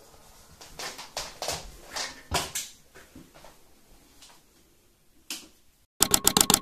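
Scattered knocks and rustles about a second apart, from a hand-held phone camera being handled and moved. Near the end a fast run of sharp, typewriter-like clicks starts, about nine a second.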